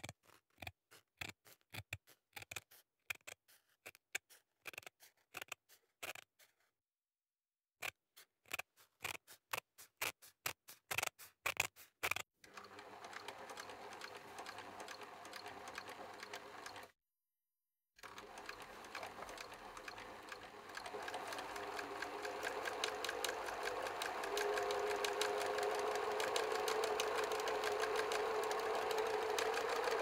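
Short strokes of a fine-tip pen on sketchbook paper, each a brief burst with dead silence between, for about the first twelve seconds. Then a small machine runs with a steady rapid ticking and a hum, growing louder past the middle.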